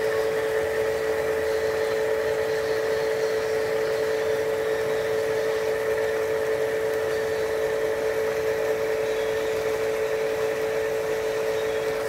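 A steady machine hum: two close, unchanging pitches over a soft hiss.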